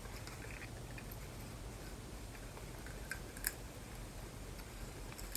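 Quiet eating: faint chewing and the small clicks of snow crab leg shells being picked apart by hand, with a couple of sharper clicks about three seconds in, over a low steady hum.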